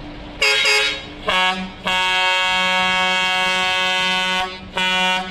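Daewoo coach's air horn sounding four blasts: two short ones, then a long steady blast of about two and a half seconds, then a short one at the end.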